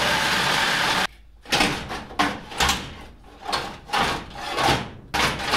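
Cordless power tool cutting through the steel crash bar inside a car door, then stopping abruptly about a second in. Several sharp metal knocks and clanks follow as the cut crash bar is worked loose.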